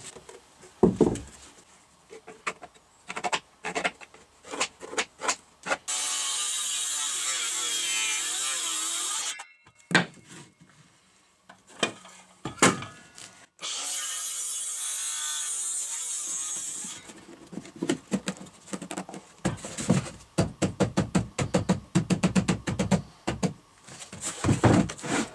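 Circular saw cutting through a wooden board twice, each cut a steady run of about three seconds, between clicks and knocks of wood and tools being handled. Near the end comes a quick run of wooden knocks and taps as the pieces are handled.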